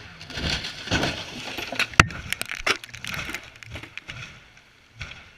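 A racing car crashing: a run of hard impacts and crunching over about four seconds, the loudest a sharp bang about two seconds in, then one more knock near the end.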